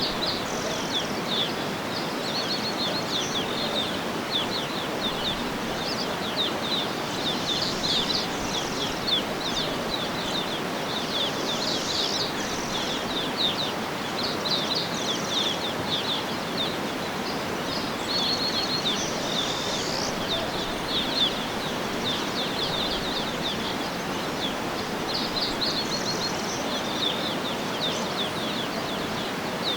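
Many small birds chirping and trilling continuously in quick overlapping calls, over a steady even hiss of outdoor background noise.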